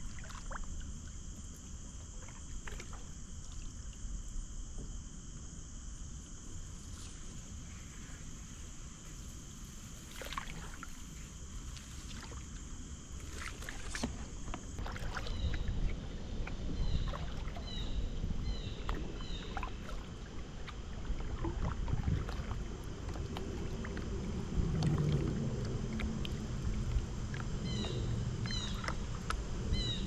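Kayak paddling: paddle blades dip and splash in the water against a steady low rumble of wind on the microphone. From about halfway, short high chirps repeat in quick runs, and the water and wind noise grows louder near the end.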